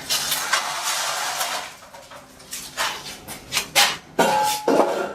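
Heavy steel parts scraping and clanking together as a steel top is set onto a welded steel frame. A scrape lasting about a second and a half is followed by several sharp metal knocks, one of which rings briefly.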